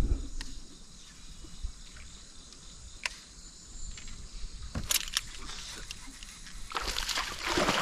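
Quiet open-air noise over the water with a few sharp light clicks, then a louder splashing rush of water from about seven seconds in.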